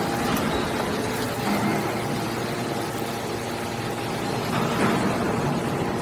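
Hydraulic scrap-metal baler running steadily, its power unit humming as the ejection cylinder pushes a compressed bale of metal turnings out of the press.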